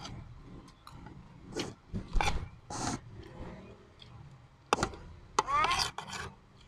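Metal spoon scraping and clicking against a ceramic plate while rice is scooped and eaten: a handful of short scrapes and clicks.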